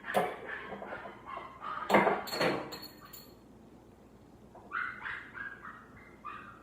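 A few sharp knocks, then a dog yipping in a quick series of short high calls, about three a second.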